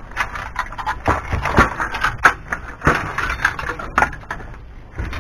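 Irregular clanks and rattles of a DVD player's sheet-metal casing and loose parts being handled and pried apart.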